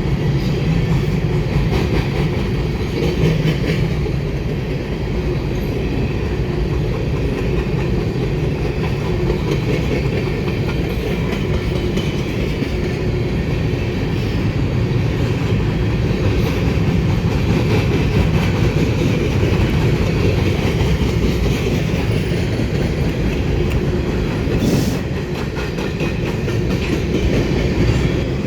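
Train rolling past with a steady loud rumble, its cars' wheels clacking over the rail joints.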